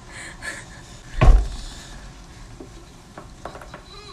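One loud thump about a second in, then a few faint clicking pops, from a person's back being cracked.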